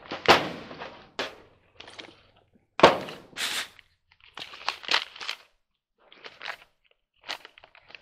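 Hand tools and metal parts being handled: a string of sharp knocks and clatters, the loudest about three seconds in, with short rustling and scraping between them.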